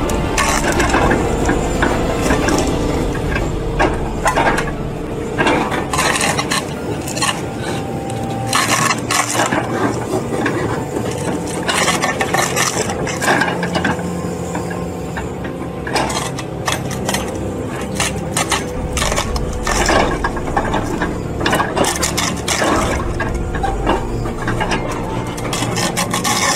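An excavator-mounted stump splitter tearing into a tree stump: wood cracks and splinters again and again at irregular moments, with mechanical rattling underneath.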